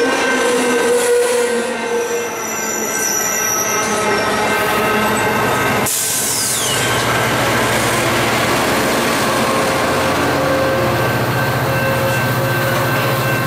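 Capitol Corridor bilevel passenger cars rolling past with their wheels squealing. About six seconds in, the CDTX F59PHI diesel locomotive pushing at the rear passes, and a steady low engine drone runs on from there.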